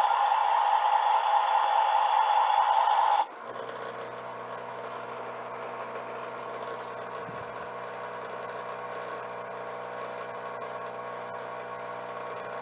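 Battery-operated toy JCB tipper truck: a loud electronic sound effect from its speaker plays for about three seconds and cuts off suddenly. After that the toy's small motor runs with a steady buzzing hum and a light rattle as it vibrates.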